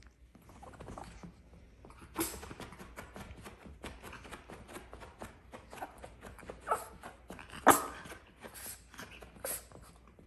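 A tiny, agitated dog yapping in short, sharp bursts with whimpering between them, the loudest yap about three quarters of the way through.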